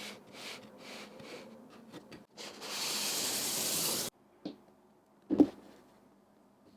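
Keyboard packaging handled by hand: soft rustles, then a sustained sliding hiss for about a second and a half that cuts off suddenly, followed by a light tap and a sharper knock.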